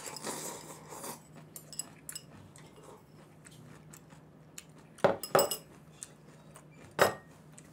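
Spoon scraping and clinking in a porcelain bowl as the last noodles are eaten out of it, then sharp clinks of the bowl and utensils on the table, two close together about five seconds in and one more near the end.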